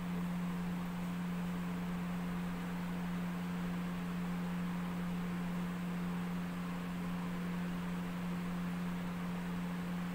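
A steady low hum with a constant hiss beneath it, unchanging throughout.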